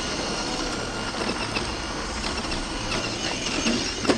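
RC scale crawler with a brushless motor driven hard up a dirt climb: motor and gears whining in short, wavering bursts while the tyres spin and fling dirt and gravel. A sharp knock near the end.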